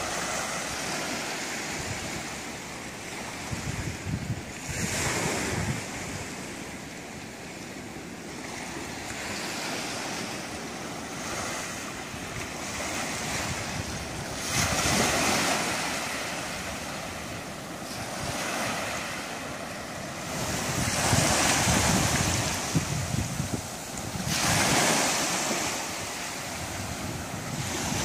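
Small ocean waves breaking and washing up a sandy beach against rock, the wash swelling into louder surges every several seconds, with a gusty low rumble of wind on the microphone.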